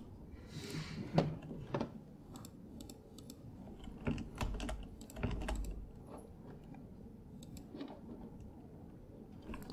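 Faint, irregular keystrokes and clicks on a computer keyboard, with a brief low rumble about four and a half seconds in.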